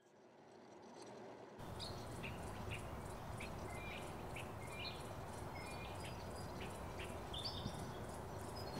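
Birds chirping in short, irregular calls over a steady outdoor background hiss. The sound fades up from silence during the first second and a half.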